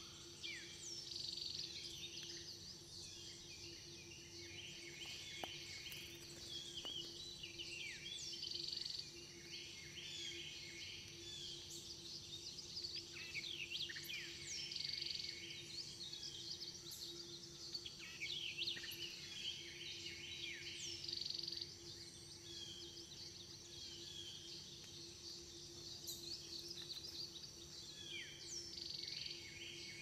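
Woodland birds singing and calling: many short chirps and quick sweeping notes, some repeated in runs, over a steady low hum.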